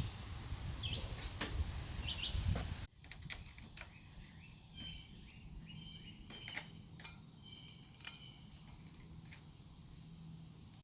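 Small birds chirping in short high notes over outdoor background noise. A low rumbling background cuts off abruptly about three seconds in, leaving the chirps and a few light clicks.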